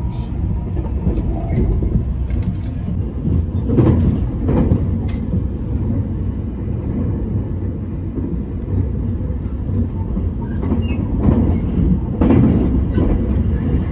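Cabin interior of a 287-series electric express train running at speed: a steady low rumble of wheels on rail, with sharp knocks from rail joints or points, a cluster about four seconds in and another near the end.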